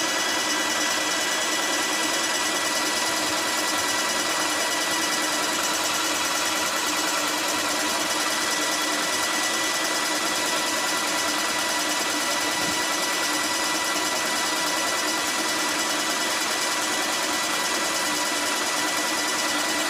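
Graco Magnum ProX9 electric airless paint sprayer running steadily, its piston pump making an even mechanical hum with a steady high whine.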